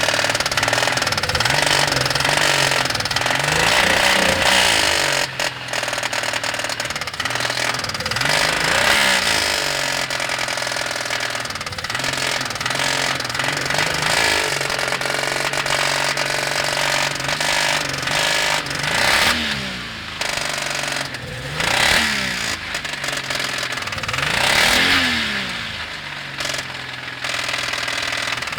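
Toyota 1G-EU straight-six engine idling and being blipped up and back down again and again, with a rapid knocking running through it. The knock is the fault being shown, and the owner believes it comes from one particular spot on the engine.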